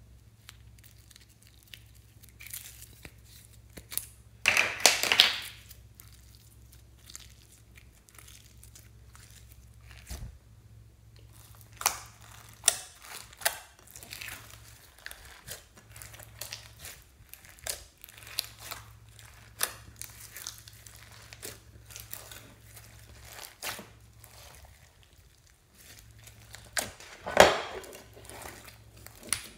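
Sticky slime mixed with glitter and beads being pressed and poked by hand in a glass dish, making scattered wet crackles and pops, with louder bursts about five seconds in and again near the end.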